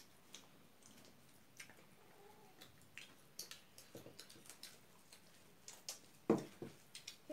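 Quiet eating sounds by hand: scattered small clicks and smacks of chewing and of fingers working rice. A soft thump about six seconds in.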